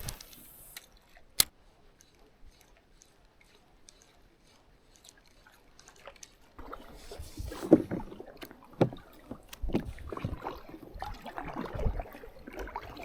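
A single sharp click about a second and a half in. From about halfway on, water sloshing with irregular knocks and low thuds.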